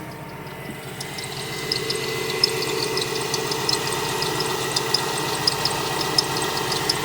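2017 Ford Transit running steadily, with short high-pitched squeaks repeating irregularly over the hum, several a second. This is the unexplained squeak that four mechanics could not trace. The running gets louder about a second in.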